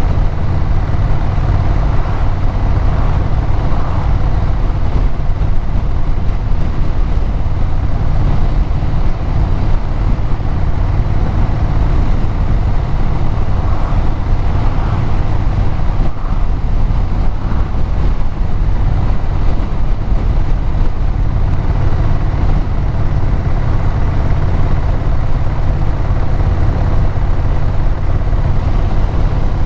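Vehicle engine and exhaust running steadily at cruising speed, with road and wind noise.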